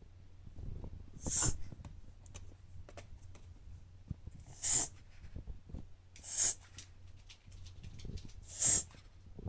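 A dog reverse sneezing: air pulled in hard through the nose in four sharp, hissy gasps, one every two to three seconds, with low rough breathing noises between them.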